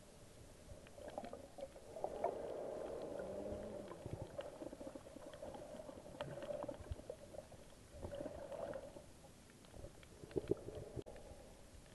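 Muffled underwater sound picked up through an action camera's waterproof housing: water swishing and bubbling with scattered short clicks over a steady hum, louder from about two to nine seconds in.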